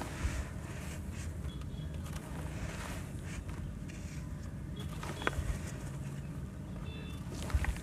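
Hands crumbling lumps of charcoal sand cement, grit and powder pattering down into a plastic tub of water and wet sand, with a few sharper crunches, over a steady low rumble.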